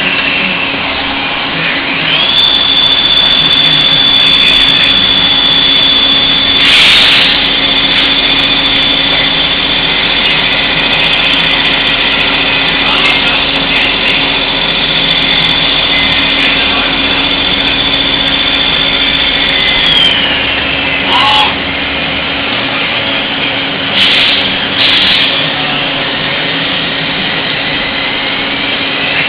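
Hardinge GT-27 CNC turning center running: a high whine rises in pitch about two seconds in, holds steady, then drops away about twenty seconds in, over a steady machine hum. A few short bursts of noise break in, one about seven seconds in and two close together near the end.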